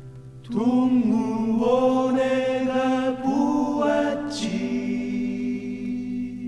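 The ending of a 1980s Korean folk-rock song, played from a vinyl LP: several voices hold a sung chord over a steady low note. The chord changes about four and a half seconds in and then begins to fade.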